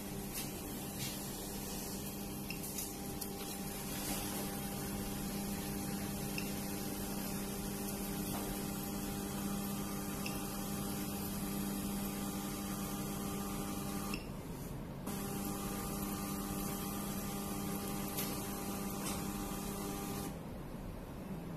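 Veterinary ECG machine's built-in printer motor running steadily as it feeds out the chart, a humming whine. It cuts out for under a second about fourteen seconds in, resumes, and stops near the end.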